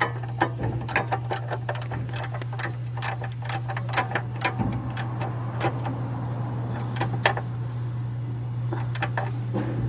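Irregular metallic clicks and clinks of hand tools at work on a car engine, over a steady low hum that starts right at the beginning.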